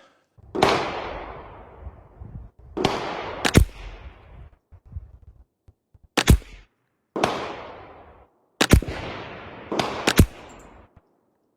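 Weatherby XXII semi-automatic .22 LR rifle firing a string of single shots a second or more apart, each a sharp crack followed by a decaying echo.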